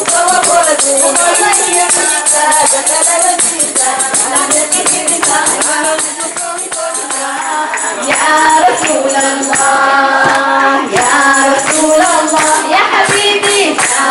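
A woman sings a song into a microphone, with other voices joining in, over a fast, even shaken-percussion beat. About seven seconds in the beat thins out and the singing grows stronger.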